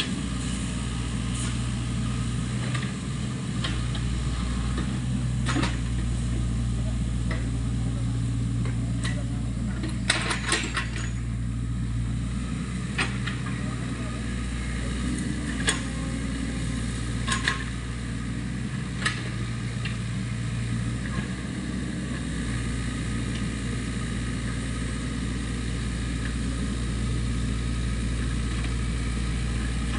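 SANY compact excavator's diesel engine running steadily, with short sharp metallic clanks from the machine every few seconds and a quick cluster of them about ten seconds in.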